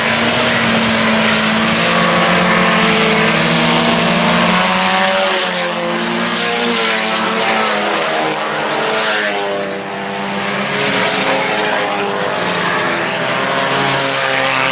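A pack of IMCA Sport Compact race cars, four-cylinder compacts, racing flat out on a dirt oval. Several engines are heard at once, their pitch rising and falling as the cars pass and go around the turns.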